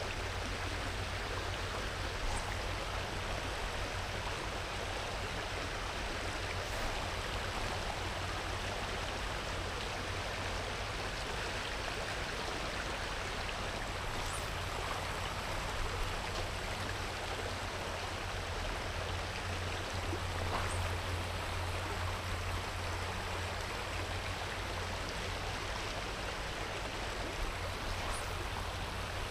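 Shallow river riffle running over stones: a steady rush of water with a low rumble underneath and a few faint ticks.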